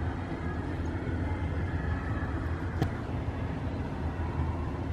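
Steady low outdoor background rumble with no distinct source, and one sharp click a little under three seconds in.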